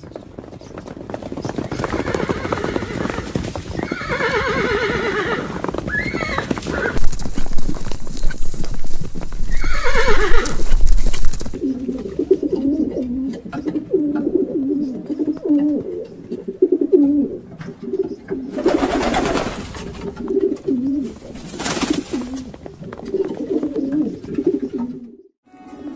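A horse whinnies in the first half, with a loud low rumble between the calls. Then pigeons coo over and over, with two short rushing noises in among the cooing.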